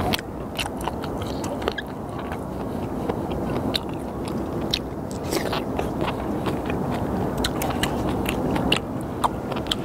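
Close-up mouth sounds of chewing raw sliced skate and kimchi: wet clicks and crunches, many short sharp ones scattered throughout, over a steady low background rumble.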